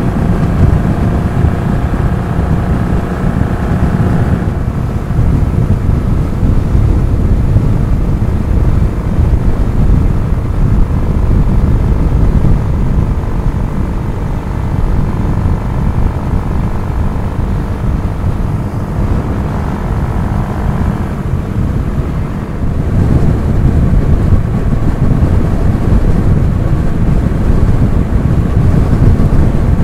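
Kawasaki W650 parallel-twin motorcycle engine running at highway cruising speed, heard from the rider's seat, with heavy wind rush on the microphone.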